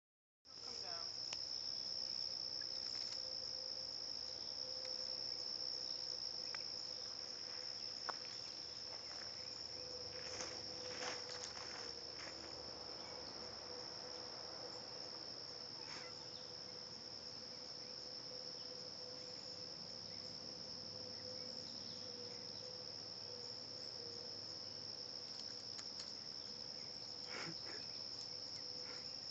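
Steady high-pitched insect chorus trilling without a break, over a fainter steady lower hum, with a few faint scratches and rustles now and then.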